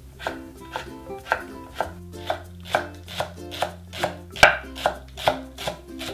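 Kitchen knife chopping on a wooden cutting board, slicing white radish and then green onion, in steady strokes about two a second, the loudest about four and a half seconds in. A light background tune plays underneath.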